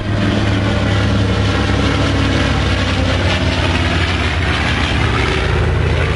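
Piston engines of a B-25 bomber and its P-51 Mustang escort flying a pass: a loud, steady drone, with a rushing noise that swells around the middle as they go by.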